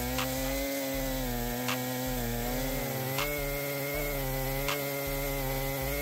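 Two-stroke chainsaw engine running steadily at high revs while cutting wood, its pitch wavering slightly. A light tick comes about every second and a half.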